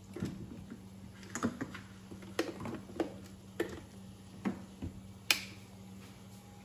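Irregular sharp clicks and light knocks, about nine of them, the sharpest a little past five seconds in, as an electric frying pan's power plug, cord and cookware are handled on a kitchen counter. A steady low hum runs underneath.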